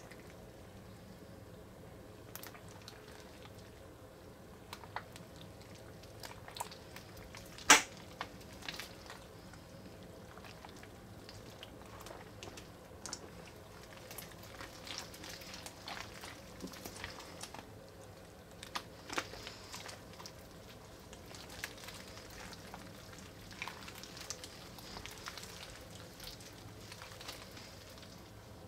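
Wet, clear slime packed with Orbeez water beads being squeezed and pressed by hands, giving faint squelching and crackling pops. One sharp, much louder click stands out about eight seconds in.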